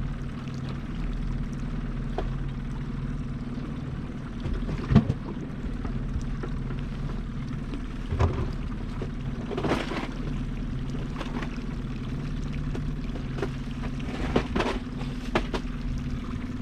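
Boat motor running steadily at trolling speed, a low even drone, with several knocks and clatters on the boat, the loudest about five seconds in.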